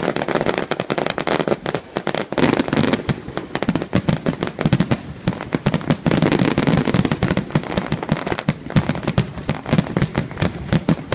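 Aerial fireworks barrage: many shells bursting in quick succession, a dense run of sharp bangs and crackles with no pause.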